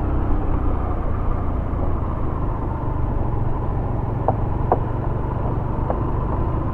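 Yamaha YBR 125G's single-cylinder engine running steadily under a low rumble of wind and road noise as the motorcycle is ridden onto a bridge, with a couple of light clicks about four seconds in.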